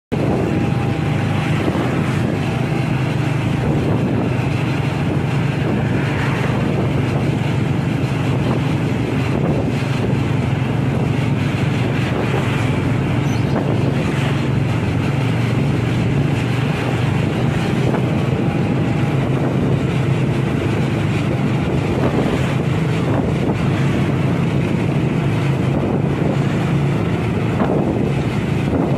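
Steady engine hum and road noise of driving behind a truck on the road, with wind rushing over the microphone.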